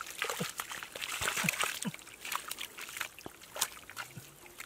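Bare hands scooping and digging through wet mud and shallow muddy water, giving irregular squelches and splashes.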